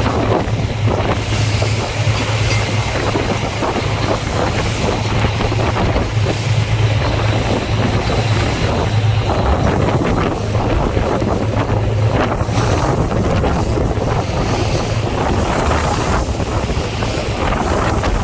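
A boat under way: its engine runs with a steady low hum, under heavy wind buffeting on the microphone and the rush of water along the hull.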